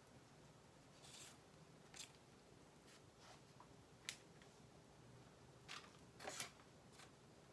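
Near silence with a few faint, brief scrapes and ticks of a silicone spatula spreading cake batter across parchment paper in a metal jelly roll pan.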